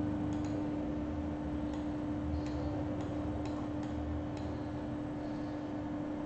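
Faint, irregularly spaced clicks of a computer mouse and its scroll wheel over a steady electrical hum.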